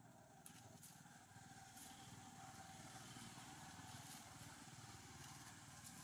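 Faint engine of a distant motor vehicle running, slowly getting louder, heard over quiet outdoor background.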